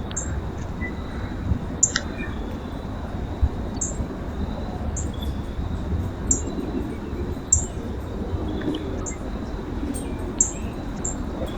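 Small songbirds at a backyard feeder giving short, high chirps, about ten of them at irregular intervals, over a steady low rumble.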